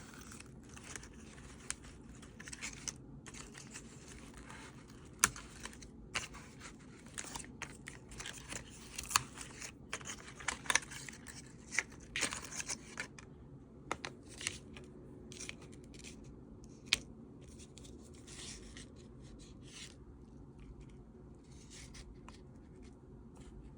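Packaging being handled and opened: rustling and tearing with scattered clicks and taps, a few sharper clicks among them.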